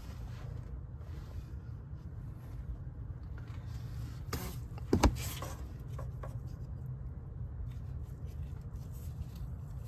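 Workshop handling noise during engine work: a steady low hum with light rubbing and scattered clicks, and one sharp knock about five seconds in.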